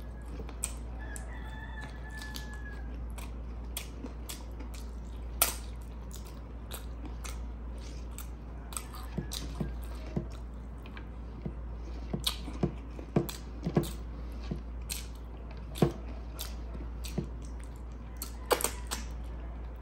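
Close mouth sounds of eating by hand: chewing, lip smacks and finger-licking clicks on rice and chicken, short and scattered, coming more often in the second half, over a steady low hum.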